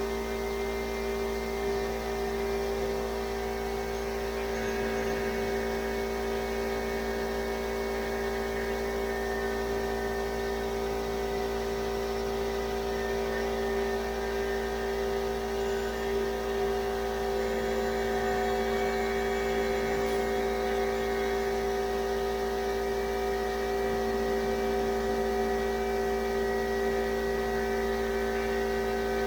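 Steady motor hum with a whir, holding one even pitch throughout.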